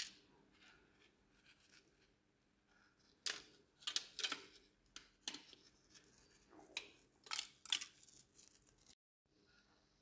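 A series of short, sharp scrapes and rustles, about eight of them at uneven spacing, from food or utensils being handled; the sound cuts out briefly near the end.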